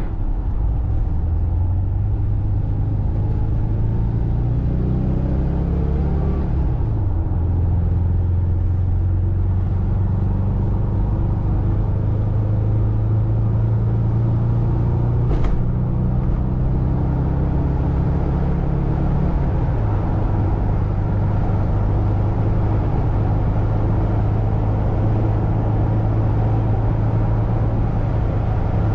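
VW Vanagon's 2.2-litre flat-four engine pulling the van along, heard from inside the cab with road noise. The revs climb for the first several seconds, fall at a gear change about seven seconds in, hold steady, then fall again at another shift near twenty seconds. One short click about halfway through.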